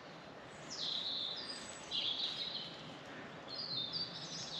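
Small songbird singing three short phrases of high chirping notes, each dropping in pitch, over a faint steady outdoor hiss.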